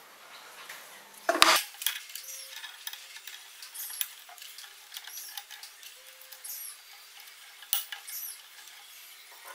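Steel vise jaw plates being handled on a steel bench: a loud metal clatter about a second and a half in as one plate is set down, then light clinks and scrapes as the other is fitted against the vise jaw, with a sharp click near the end.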